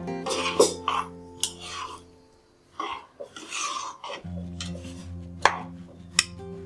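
A spoon stirring thin, liquid poori curry in a kadai, scraping and clinking against the pan several times, over background music that drops out for about two seconds in the middle.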